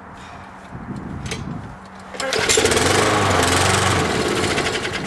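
MTD Pro lawn mower's small engine being cold-started after sitting a week and a half and priming: it catches suddenly about two seconds in and runs loudly.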